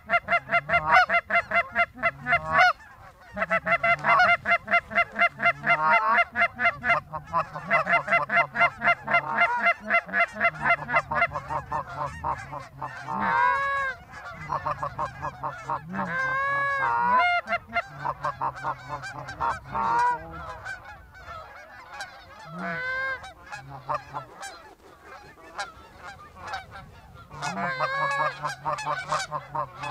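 Canada goose honking and clucking: fast runs of short repeated notes for the first ten seconds or so, then a few longer drawn-out honks, a quieter spell, and another fast run near the end.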